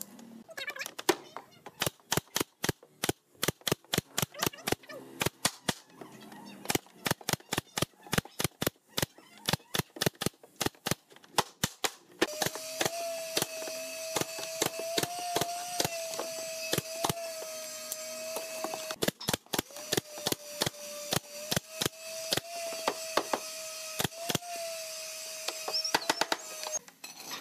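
A nail gun firing brads into wooden boards: sharp shots in quick runs, several a second, with short pauses between runs. From about halfway, a steady machine whine with a hiss runs beneath the shots, then stops near the end.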